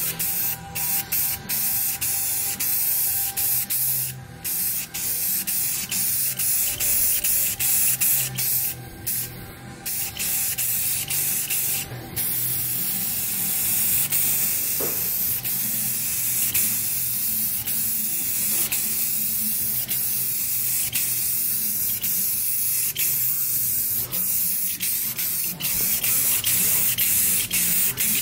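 Aerosol spray can spraying clear coat: a hiss in many short bursts with brief breaks at first, then a long nearly unbroken spray through the second half.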